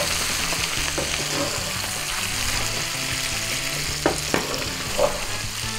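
Liver and bacon sizzling and spattering in a hot frying pan as they are stirred with a wooden spatula. There are a few sharp clicks about four and five seconds in.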